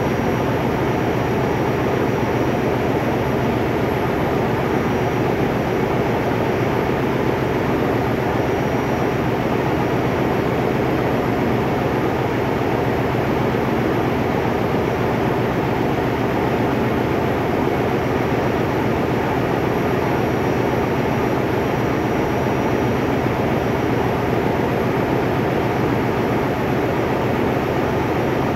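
Marine diesel generator engines running in a ship's engine room: a loud, steady machinery drone with no change and no separate knocks or clicks standing out.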